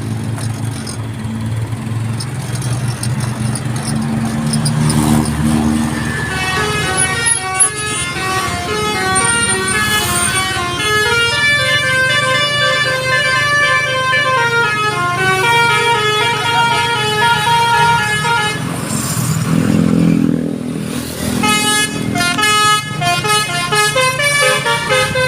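A Basuri V4 telolet musical bus horn plays a melody of quick stepped notes, starting about six seconds in and running until shortly before three-quarters of the way through. After a short pause it starts playing again near the end. The bus engine idles underneath and is heard alone at the start.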